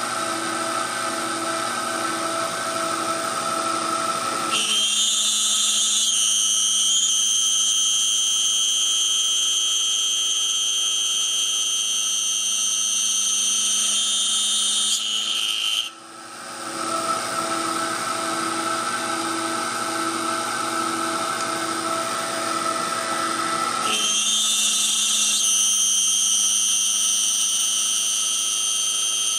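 Small CNC mill's spindle and motors running while cutting a tiny wooden ring insert. A steady machine hum alternates with stretches where a high-pitched whine joins in, twice, with a brief drop in the sound about halfway through as the machine changes moves.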